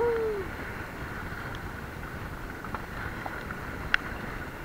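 Steady wind on the microphone with sea noise around an open boat, and one sharp click about four seconds in.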